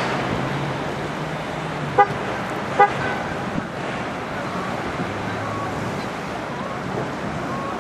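Two short horn toots about a second apart, a couple of seconds in, over a steady wash of wind and choppy water.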